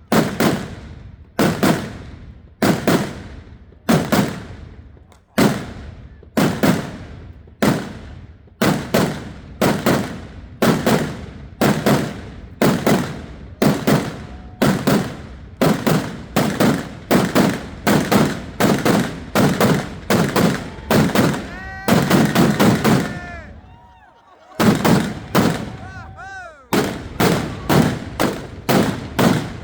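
Fireworks going off in a rapid run of sharp bangs, at first about one a second and quickening to two or three a second. Short whistles sound in the middle, and there is a brief lull before a last quick flurry of bangs.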